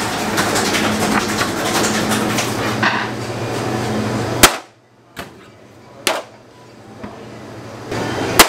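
Metal bread tins and baking trays clanking and knocking, over a steady machine hum that stops suddenly at a loud metal bang about halfway. A few sharp single knocks follow, the loudest near the end.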